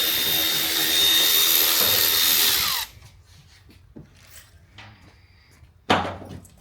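A power drill running steadily, then stopping abruptly about three seconds in. Near the end there is a single sharp knock.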